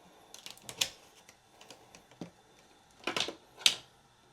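Sharp plastic clicks and knocks in two short clusters, about a second in and again near the end, as a power cable and its plug are handled.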